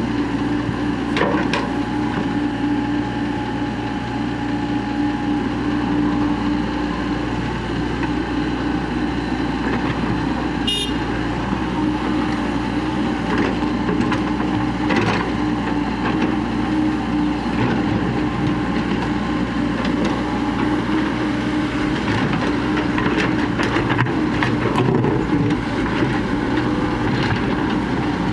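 Tracked excavator's diesel engine running steadily under load as it digs and loads, with a few knocks and a brief high squeal near the middle.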